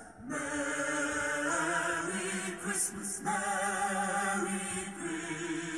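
A Christmas song playing, with voices holding long sustained notes in harmony; the chord changes about three seconds in.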